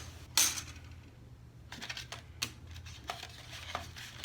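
Packaged silverware and table things being handled: a short rustle about half a second in, then a run of light clicks and clinks.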